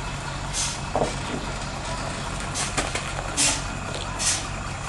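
Heavy truck's diesel engine running at a steady pitch, with a few short hisses breaking in.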